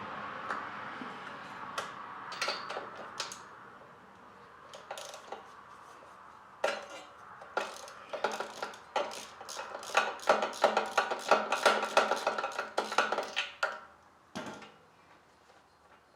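Metal tools clinking, then a socket ratchet clicking in quick runs, about four clicks a second, as the spark plug is loosened out of the Kohler engine's cylinder head.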